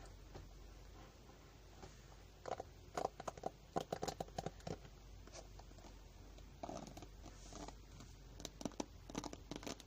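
Close-up ASMR trigger sounds: runs of quick, irregular crackling clicks, one starting about two and a half seconds in and another from about seven seconds in.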